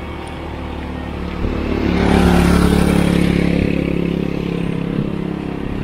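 A motor vehicle's engine running on the road, growing louder about a second and a half in and then slowly fading.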